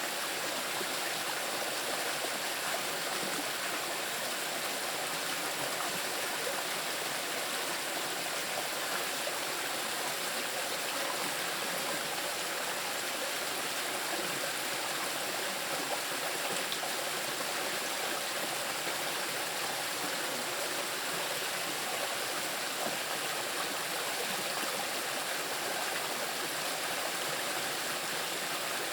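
Small river rushing over moss-covered rocks: a steady, even rush of flowing water with no change throughout.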